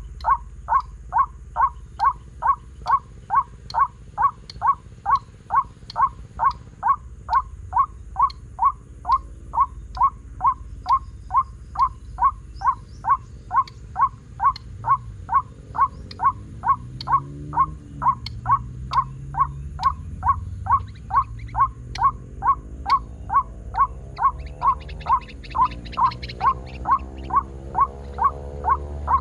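White-breasted waterhen (ruak-ruak) call played as a lure through a homemade speaker: a steady string of short, identical calls, about two a second. From about halfway a low droning sound rises and falls underneath.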